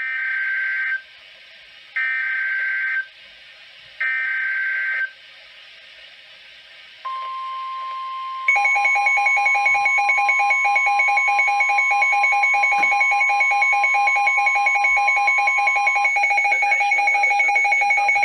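NOAA Weather Radio Emergency Alert System alert: three one-second bursts of screeching digital data tones two seconds apart (the SAME header), then the steady single-pitch warning alarm tone. About a second and a half after the alarm tone starts, a louder, rapidly pulsing electronic alarm joins it and runs on after the steady tone stops. Together they announce a tornado warning broadcast.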